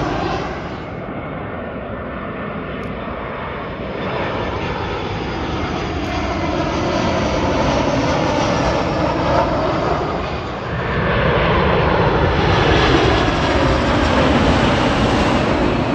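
Jet airliners on final approach passing low overhead: a steady rushing engine noise with slowly rising and falling tones. About eleven seconds in it gives way to a louder four-engined Boeing 747 freighter.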